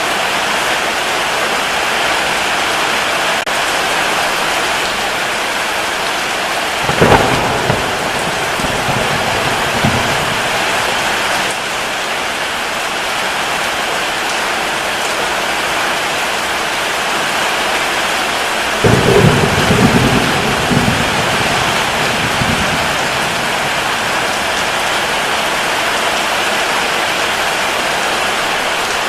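Steady heavy rain, with two claps of thunder: a sharp crack about seven seconds in and another about nineteen seconds in, each rolling off into a low rumble over a few seconds.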